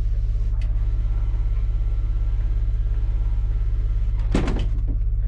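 Motorhome's onboard generator running as a steady, pulsing low hum. A motorized window shade rolls up, with a brief loud clatter about four seconds in.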